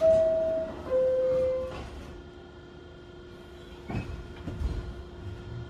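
New York City subway car door chime, two held notes with the second lower than the first, warning that the doors are closing. About four seconds in the doors shut with a knock. Near the end the train's motors start a rising whine as it begins to pull out.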